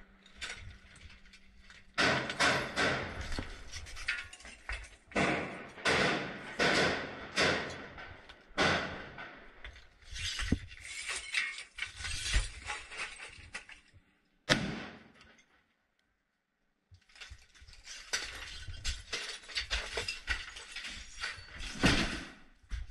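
Rapid, irregular clattering and knocking, many sharp strokes in clusters, as soldiers move through a smoke-filled room. The sound cuts out completely for about a second and a half past the middle.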